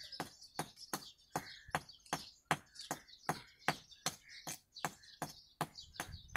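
A small metal blade tapping and scraping against glazed ceramic tiles, about three sharp taps a second, chipping stuck cement off the tiles. Birds chirp faintly between the taps.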